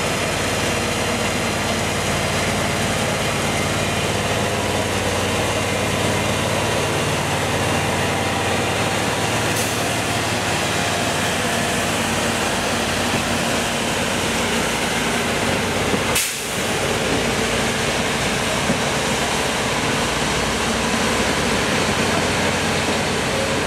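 Diesel engine of a permanent-way track maintenance machine running steadily, under a constant hiss, with a brief break about two-thirds of the way through.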